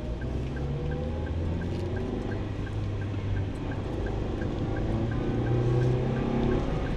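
Car engine and road noise heard from inside the cabin, the engine note climbing as the car accelerates, with a faint regular ticking about three times a second.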